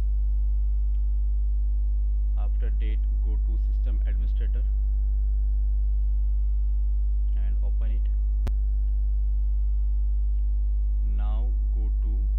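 Loud, steady electrical mains hum with a stack of overtones above it. A faint voice murmurs a few times underneath. A single sharp click comes about eight and a half seconds in.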